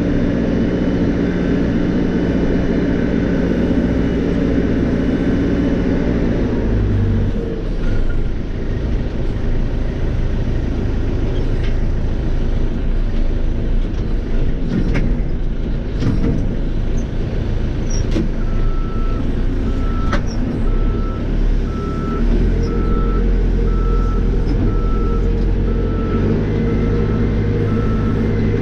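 Cat 430E backhoe loader's diesel engine running steadily under work, its note shifting about a quarter of the way in and again near the end, with a few sharp knocks. From a little past halfway its reversing alarm beeps at an even pace, a bit more than once a second.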